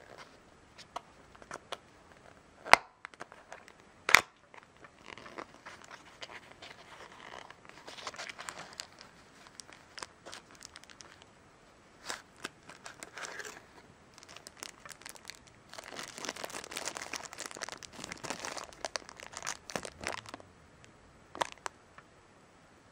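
Packaging handled by hand: a small cardboard box opened and a foil battery pouch crinkling as it is pulled out and turned over. Two sharp snaps of the box about 3 and 4 seconds in are the loudest sounds, and the crinkling is heaviest near the end.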